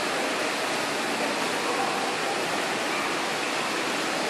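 Large ornamental fountain's water jets splashing into their basin: a steady, even rush of falling water.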